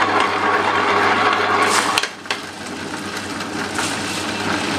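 Tabletop wet grinder running with a steady hum, its stone rollers churning soaked rice and urad dal in their soaking water at the start of grinding batter. The sound dips briefly about two seconds in.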